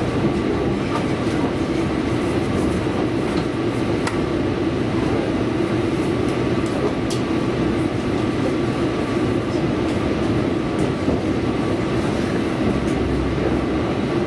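Tobu Railway electric train running along the line, heard from inside the passenger car: a steady rumble of wheels on rails with a faint steady whine and occasional light clicks.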